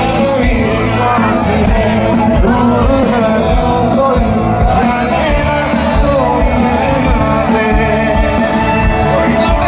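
Live concert music over a loud PA system: a male singer singing with a band, heard from within the audience.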